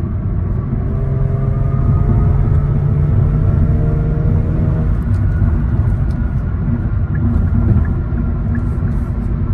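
Kia Stinger GT's twin-turbo V6 with ARK aftermarket downpipes, heard from a moving car. The engine note climbs steadily under acceleration for about four seconds and then levels off, over a constant low rumble.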